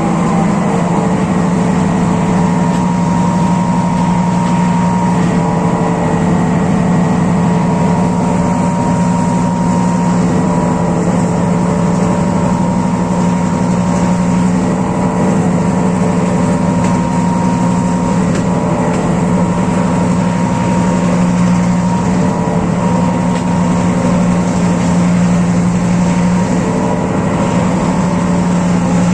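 Class M6 diesel-electric locomotive's EMD engine running loud and steady, with a deep, even hum.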